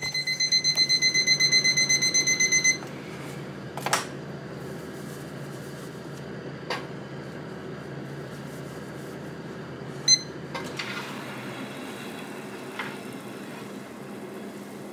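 Ishigama Dome steam convection oven's alarm beeping, a rapid high beep about six times a second for nearly three seconds, signalling that the bake has finished. It is followed by a few clicks, one short beep of the same pitch and a low steady hum.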